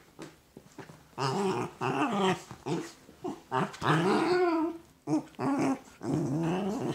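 Two small dogs play-fighting, growling over and over as they wrestle. The growls start about a second in and come in a run of short bouts.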